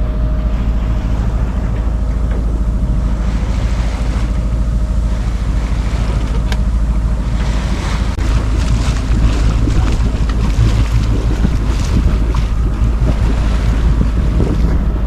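Wind buffeting the microphone with a steady low rumble, over water rushing along a sailboat's hull.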